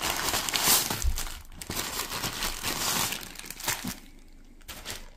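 Parcel packaging crinkling and rustling as it is opened and handled, loudest over the first three seconds and quieter after that.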